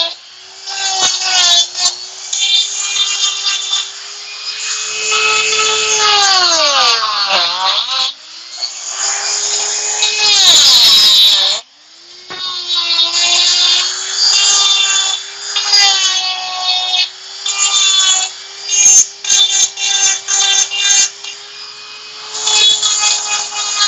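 Makita die grinder with a Kutzall carving burr whining at high speed while grinding into wood, its loudness rising and falling with the cut. About seven seconds in its pitch sags sharply and recovers. Near the middle it stops for a moment and starts up again.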